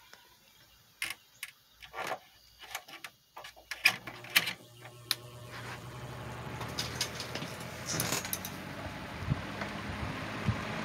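1980s Patton box fan switched on at low speed: several clicks, then about four seconds in the motor starts with a low hum and the blade spins up, its air noise rising over the next two seconds and then running steadily.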